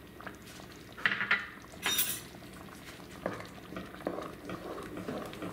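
A wooden spatula stirring and scraping through thick, simmering salsa verde in a nonstick pan, with a couple of sharp clinks about one and two seconds in.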